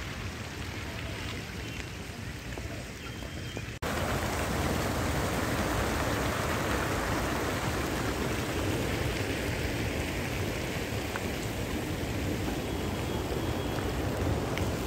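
Water from garden fountains splashing into a stone water channel: a steady rush of water, louder from about four seconds in.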